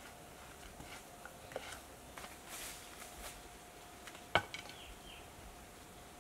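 Faint scrapes and light clicks of hand work and footsteps on dry dirt, with one sharp click about four and a half seconds in, over a faint steady high tone.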